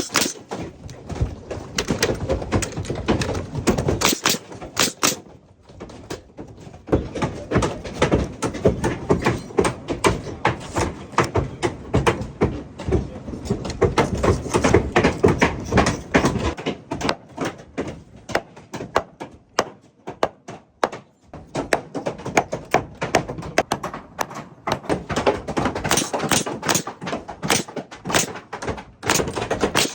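Irregular knocks, taps and thunks of hand carpentry work on wooden roof framing, with quieter patches in between.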